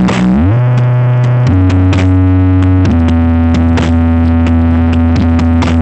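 Electronic dance music blasting from a large truck-mounted sound system (Pindang Balap Audio) during a power warm-up sound check. Loud held bass notes slide up and down between pitches under sharp percussion hits.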